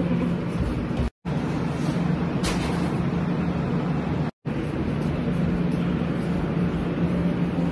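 Steady mechanical hum and rushing noise of restaurant kitchen machinery, with a constant low drone. The sound cuts out twice for a moment.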